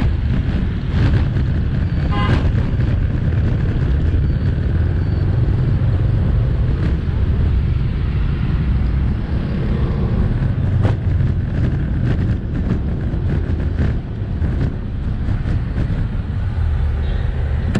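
Steady low rumble of riding a motorbike through traffic: the bike's engine and road noise mixed with wind on the microphone.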